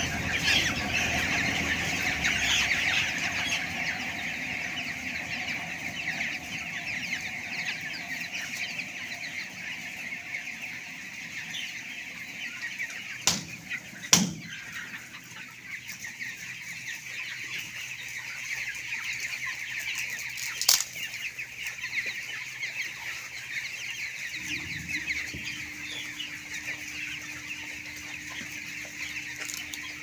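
A large flock of broiler chickens calling all at once in a dense, constant chatter of short cheeps and clucks. A few sharp knocks cut through near the middle, and a steady low hum comes in near the end.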